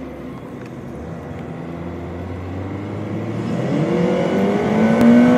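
Jet airliner engines spooling up on the takeoff roll: a rising whine over a steady rush that grows louder throughout. There is a single sharp click about five seconds in.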